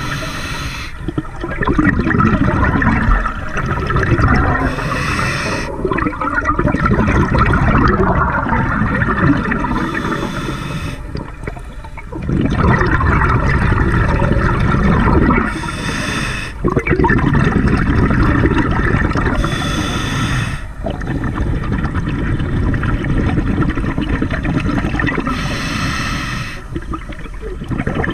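Scuba regulator breathing underwater: a short hissing inhale about every five seconds, each followed by a longer gurgle of exhaled bubbles.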